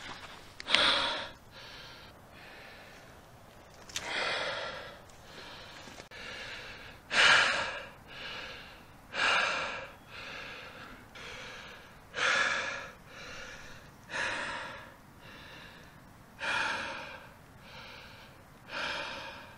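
A person breathing hard: a loud breath about every two to three seconds, with softer breaths between.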